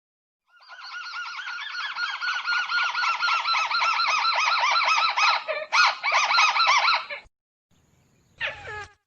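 Recorded lure call of a crake (burung tikusan): a fast chattering run of repeated notes, several a second, for about six and a half seconds, then a short falling call near the end.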